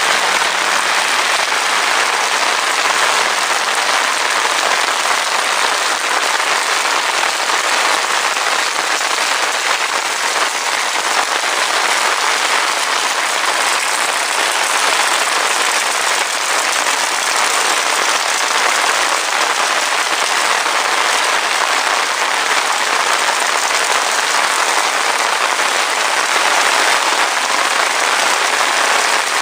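Heavy rain falling steadily, a dense even hiss of countless drops without letup.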